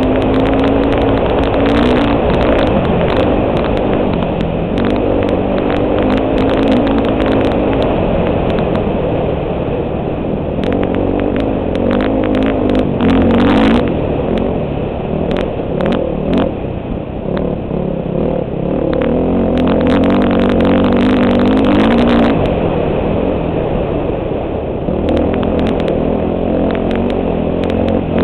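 Four-stroke dirt bike engine running hard at racing speed, heard from a helmet camera. The revs rise and drop in several surges as the throttle is worked, with scattered clicks and clatter over the engine.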